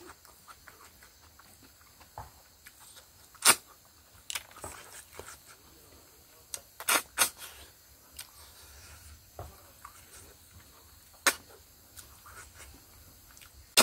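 Eating sounds of a man eating by hand: sharp lip and mouth smacks among fainter chewing clicks, the loudest about three and a half seconds in, a quick pair around seven seconds and another near eleven seconds.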